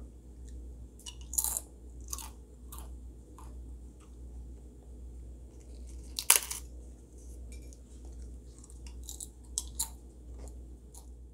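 A sheet of toasted dried kelp (kelp chip) snapped and crumbled by hand: a string of short, crisp crackles, the loudest about six seconds in, the sign that the kelp has toasted through to a crisp chip. A steady low hum runs underneath.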